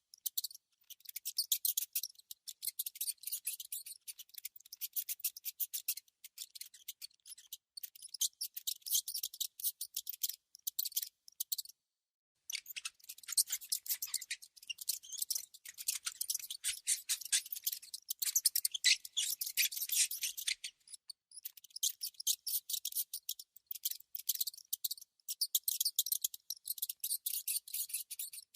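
A mouse making rapid, dry, high-pitched scratching clicks in dense, irregular runs, with a short break about twelve seconds in.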